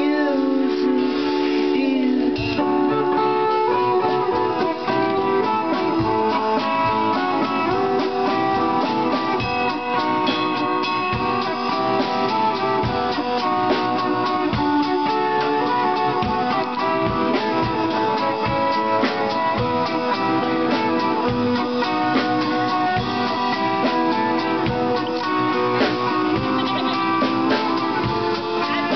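Live instrumental passage: a semi-hollow electric guitar playing along with a drum kit, steady drum hits under ringing guitar notes.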